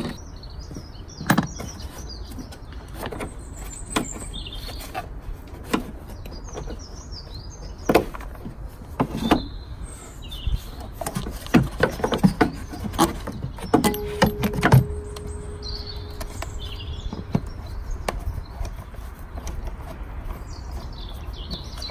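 Scattered knocks and clicks of a plastic air filter box and its intake snorkel being worked loose and lifted out of a Hyundai i10's engine bay, busiest in the middle, with birds chirping faintly in the background.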